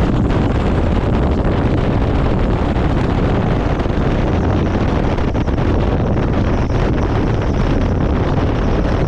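Steady wind noise buffeting the microphone: a loud, unbroken rumble and hiss.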